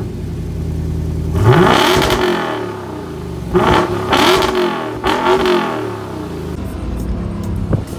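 A Lexus RC coupe's engine idling and being revved through its exhaust: about four sharp throttle blips, the first and longest a little over a second in, each rising in pitch and falling back to idle.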